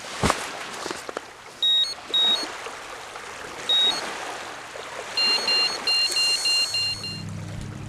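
Electronic carp bite alarm beeping on the rod pod: a few short single beeps, then a fast run of two-tone beeps, about three or four a second, for some two seconds, signalling a take on the line. Small waves lap on the shore underneath.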